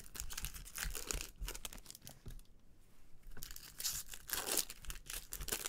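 Foil trading-card pack wrapper crinkling and tearing in the hands, in quick crackly bursts that pause briefly midway.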